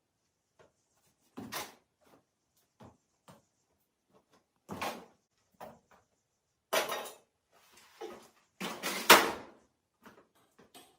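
Irregular knocks and clatters of objects being handled, with two longer, louder scraping clatters about seven and nine seconds in.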